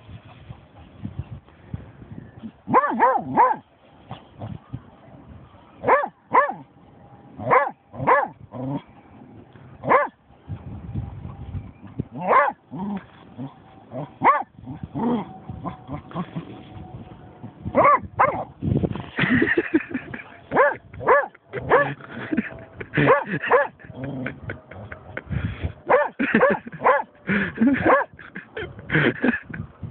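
German shorthaired pointer barking over and over, single barks and quick pairs of barks with pauses of a second or two between them.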